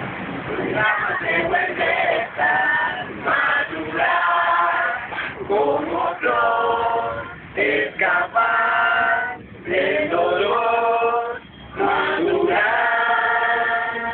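A group of men's and women's voices singing together in long held notes, phrase after phrase with short breaks between them.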